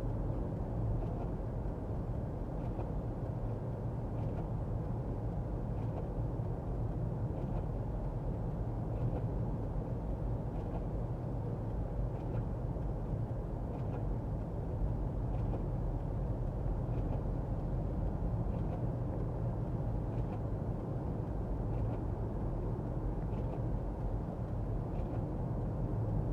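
Steady road and engine noise inside a moving car: a low hum with tyre noise on a wet road. A faint tick repeats about every second and a half throughout.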